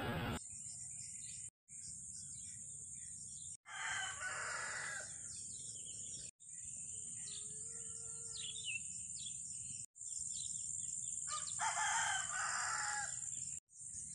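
Birds calling: two longer calls about four and about eleven seconds in, with short chirps in between, over a steady high hiss. The sound drops out briefly several times.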